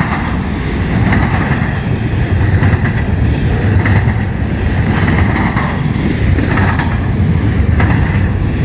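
CN freight train rolling past, a steady rumble of wheels on the rails with occasional clicks as the wheels cross rail joints.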